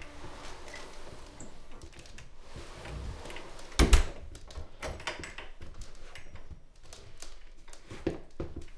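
Front door shutting with a loud thud about four seconds in, among small clicks and shuffling as someone steps out of their shoes in the entrance.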